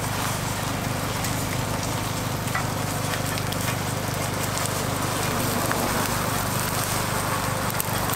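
Egg, shredded cabbage and bulgogi patties sizzling on a flat griddle, a steady frying hiss over a constant low hum.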